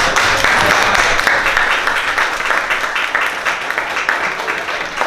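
A roomful of students applauding, many hands clapping at once.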